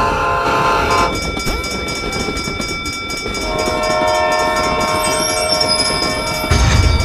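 Train sound effects: a horn chord that cuts off about a second in, a second horn chord starting about halfway, over the clatter of a passing train and the steady ringing of a railroad crossing bell. A heavy low thump comes near the end.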